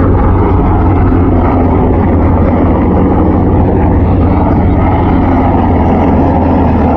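HH-60G Pave Hawk helicopters flying by, a loud steady rotor and turbine drone.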